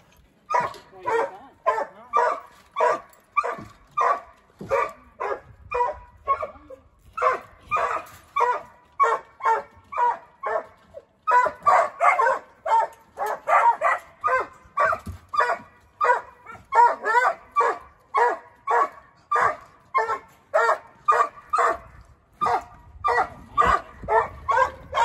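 Coonhound barking over and over, about two to three barks a second, without a break.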